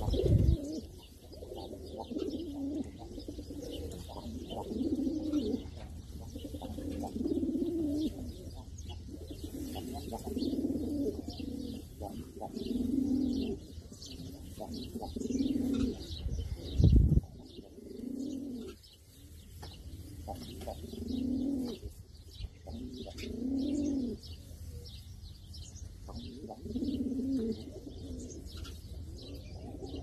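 Frill-feathered (kashkashi) pigeons cooing, a rolling coo repeated every two or three seconds: the bow-coo of a courting pigeon. Two dull thumps stand out, one at the very start and a louder one about 17 seconds in.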